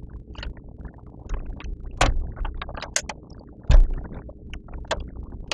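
Hands working small laptop parts: a string of scattered clicks and light taps, with a heavier knock about two-thirds of the way through.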